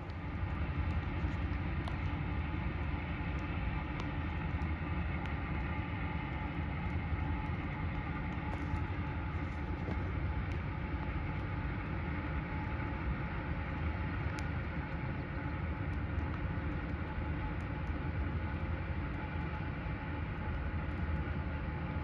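A heavy vehicle rumbling steadily, a deep low drone with several steady humming tones above it.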